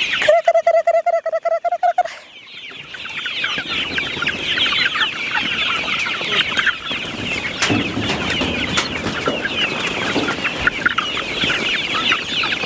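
A large flock of young chickens cheeping and clucking all at once in a dense, continuous chatter. Over the first two seconds a short pulsing tone sounds before the chatter takes over.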